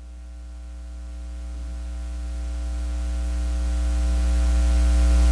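Steady electrical hum and hiss, with a few faint steady tones above the hum, growing steadily louder.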